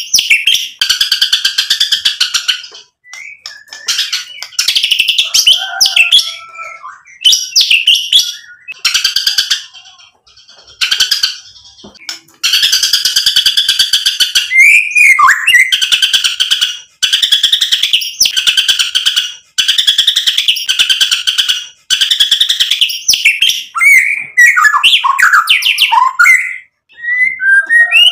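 White-rumped shama (murai batu) singing loudly: repeated bursts of harsh, rapid-fire notes, each lasting one to two seconds, broken up by clear whistled notes, including a falling whistle about halfway and a quick run of varied whistles near the end.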